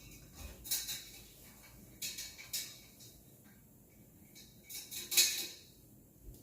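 Kitchen cookware and utensils clattering and scraping in a few short bursts, the loudest about five seconds in.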